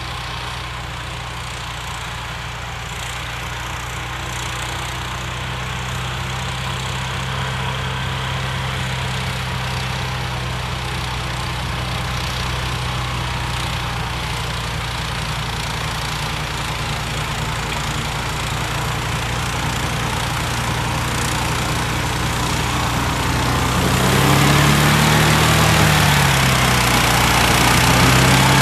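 Modified John Deere 1032 snowblower's 16 hp engine running steadily. About 24 seconds in it gets louder and its pitch dips and comes back up, then rises again near the end.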